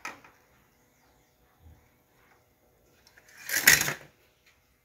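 A brief scraping, crinkling rustle about three and a half seconds in, lasting under a second: a disposable aluminium foil pan being shifted and handled.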